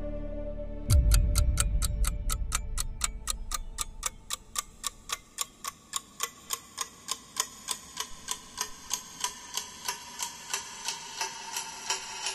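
A deep boom about a second in, then a clock ticking evenly, about three ticks a second.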